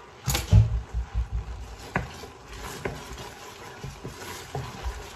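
Wooden spatula stirring liquid in a large stainless steel stockpot. There is a cluster of knocks and bumps about half a second in, then a few light clicks of the spatula against the pot.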